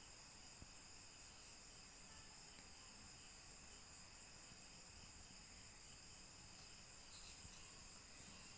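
Near silence, with a faint steady high-pitched hum in the background.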